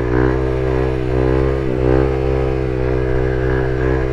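Honda Grom's single-cylinder four-stroke engine running at steady part throttle while riding. The pitch dips briefly a little under two seconds in, then picks back up.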